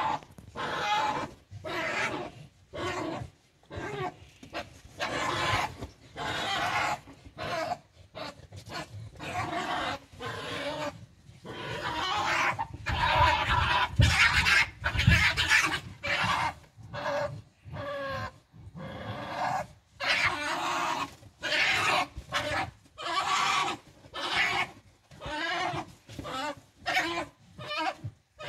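Two European badgers fighting: a long run of harsh cries, each lasting up to about a second and a half with short gaps between, loudest about halfway through.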